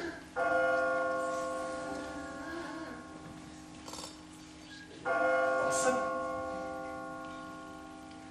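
A bell striking the hour, as a clock strikes ten. Two strokes about five seconds apart each ring out and slowly fade; the second is counted aloud as the eighth.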